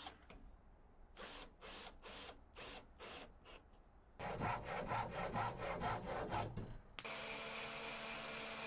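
A series of short rasping strokes on wood, quickening to a fast run, then a cordless drill running steadily as it bores a hole into a wooden batten.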